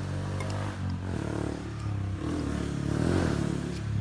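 A motor vehicle's engine running: a steady low hum that changes pitch after about a second and grows loudest about three seconds in.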